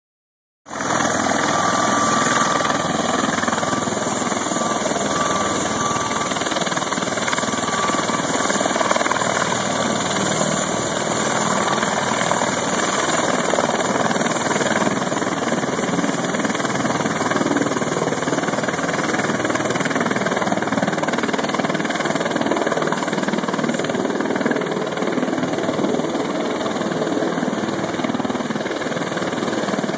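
MV-22 Osprey tiltrotor taxiing with its nacelles upright, its two turboshaft engines and proprotors running as a steady, loud drone. It starts abruptly just under a second in.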